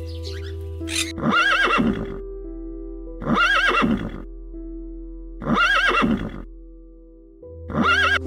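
A horse whinnying four times, about two seconds apart, the same call repeated each time, over steady background music.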